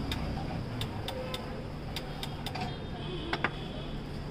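Metal spatula tapping on a flat iron griddle (tawa), a run of sharp metallic clicks two or three to the second, then two louder clacks in quick succession about three and a half seconds in, over a steady low hiss.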